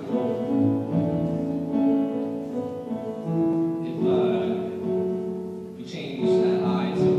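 A live song: piano chords with a man singing over them.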